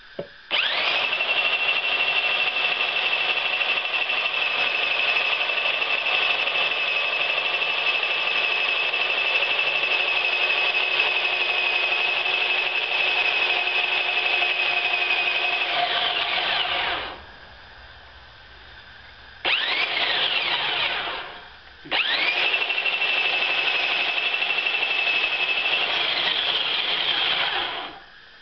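Homemade handheld bandsaw mill driven by a Ryobi circular saw motor, ripping a 2x4 lengthwise. The motor spins up to a steady high whine and runs about sixteen seconds before winding down. It gives a brief start-and-stop a few seconds later, then a second steady run that winds down near the end.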